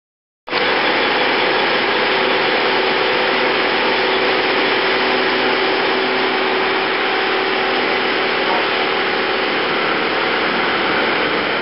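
Liebherr LTM1400-7.1 mobile crane running close by: a loud, steady mechanical noise with a steady whine running through it. It starts abruptly about half a second in.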